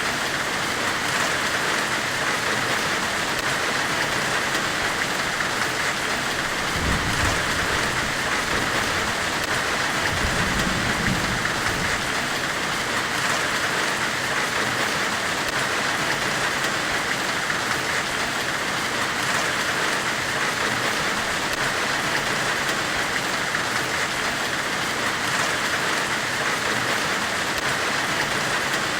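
Steady white-noise hiss, strongest in a high-middle band, made to evoke a forge weld. A brief low rumble comes about seven seconds in, and another around ten to eleven seconds.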